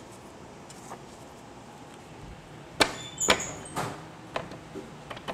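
A punched-card deck being stacked and handled at an IBM 082 card sorter: low steady background at first, then a run of sharp knocks and clacks starting a little under three seconds in.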